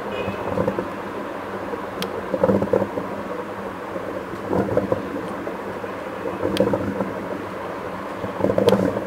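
Distant fireworks shells bursting: dull, rolling booms arriving about every two seconds, with a few sharp cracks among them.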